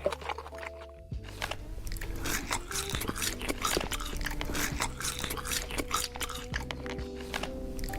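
Close-up eating sounds: crunchy bites and chewing, a quick run of sharp crackles, over background music with held notes.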